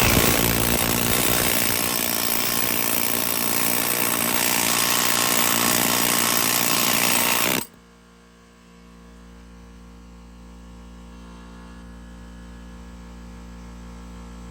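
Power tool cutting through the seized engine's crankshaft to free it, running loudly, then cutting off suddenly about seven and a half seconds in, leaving a low steady hum.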